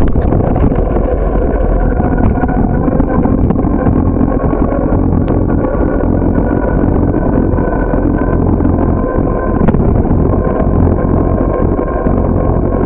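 Loud, steady low rumble of wind buffeting and road noise on a bicycle-mounted camera's microphone as the bike rolls along the street. Two sharp clicks sound about five and ten seconds in.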